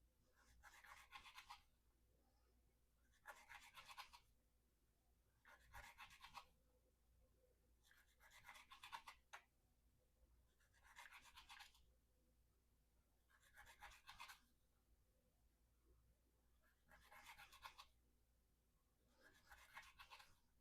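A Spyderco Endura 4's VG-10 blade slicing through rope again and again, one short, faint scraping cut about every two and a half seconds, eight in all: repeated cuts in an edge-retention test of a mirror-polished edge.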